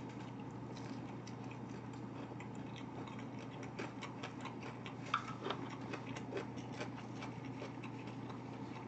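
A person chewing a mouthful of gimbap with the mouth closed: faint scattered wet clicks, busier toward the middle, over a steady low hum.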